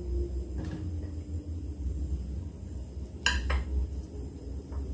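Metal utensil clinking against an aluminium pressure cooker pot as boiled cassava is lifted out: a light knock, one sharp clink about three seconds in, and another light knock near the end.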